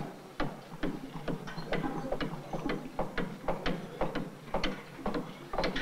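Hand tool striking the wooden planks of a boat under construction: a steady run of sharp blows, about two a second.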